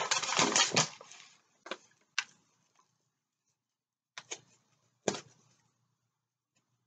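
Rustling and crinkling of a rolled diamond painting canvas and its paper cover being handled. A dense rustle stops about a second in, followed by a few separate short crackles.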